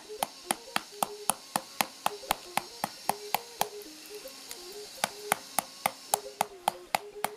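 A wooden stick beating a whole pineapple held up by its crown, a sharp knock about four times a second with a short pause midway: the fruit is being pounded to crush its flesh for juice instead of blending it.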